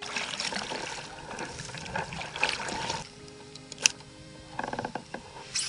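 Kayak paddling through dense reed grass, with the paddle splashing and stems brushing along the hull for about three seconds. Then quieter lapping water, with a sharp click about a second later and a quick rattling run of clicks near the end.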